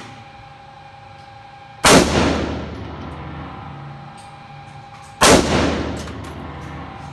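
Two single shots from an AR-15 rifle, about three and a half seconds apart, each followed by a long echo off the walls of an indoor shooting range.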